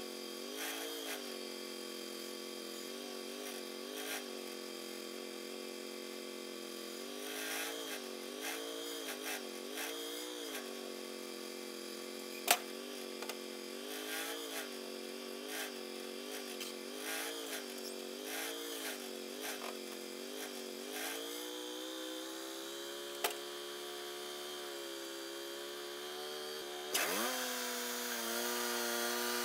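Sawmill's gas engine idling, its pitch wavering gently about once a second, with a sharp click about halfway through. Near the end it revs up sharply to full speed, spinning the band blade up for the next cut.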